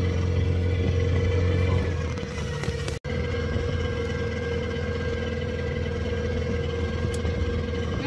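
Motor of a wooden passenger boat running steadily under way, a constant engine drone with a higher whine over it. The sound cuts out for an instant about three seconds in, then carries on.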